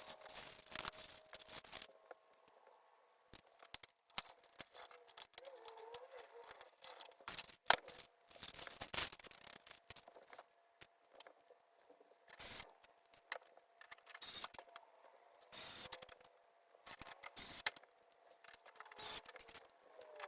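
Irregular small clicks, snaps and rustling of hands handling PC hardware during assembly, with one sharper click about eight seconds in.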